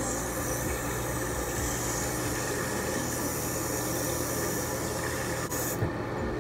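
Bathroom sink tap running steadily while lukewarm water is splashed onto a face in a rinse; the flow cuts off near the end.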